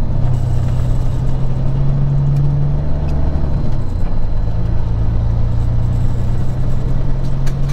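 Peterbilt 379 semi-truck's diesel engine pulling under load as the truck accelerates away from a traffic light, heard from inside the cab. The engine note breaks briefly and settles at a new pitch about four seconds in, as at a gear change.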